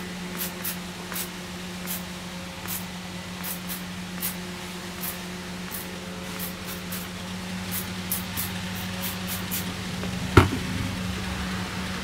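Hand-pump spray bottle misting water onto hair in a string of short, quick squirts that stop about nine and a half seconds in. A single sharp click follows about ten seconds in.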